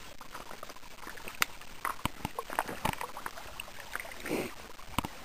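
Footsteps on wet river rocks and gravel: irregular clicks and knocks, over a faint trickle of shallow water.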